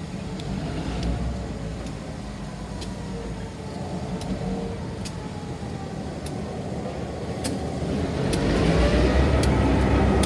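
EMD GP10 and GP8 diesel locomotives with 16-cylinder EMD 567 engines, approaching at low speed. The low engine rumble grows much louder about eight seconds in as the lead unit reaches the crossing. A light, sharp strike sounds about once a second.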